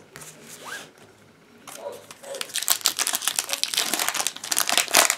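Foil Pokémon booster pack wrapper crinkling as it is torn open by hand: a dense, irregular run of crackles that starts about two and a half seconds in.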